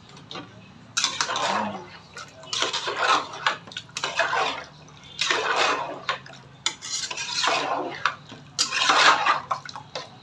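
Metal spoon stirring and scraping chicken gravy in a cooking pot, in about six strokes of roughly a second each.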